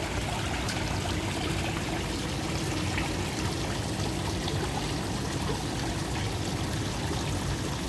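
Water running steadily and trickling into a koi pond, with a faint steady hum underneath.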